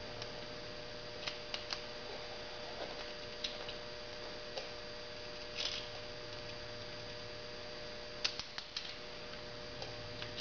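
Scattered light metallic clicks and taps as small hardened washers and cam bearing caps are handled by hand on a Maserati V6 cylinder head, over a steady electrical hum.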